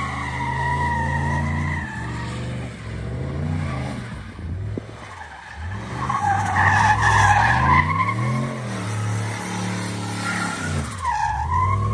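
Chevrolet Silverado pickup doing donuts: its tyres squeal as they spin against the pavement while the engine revs up and down over and over. The squeal is loudest about halfway through.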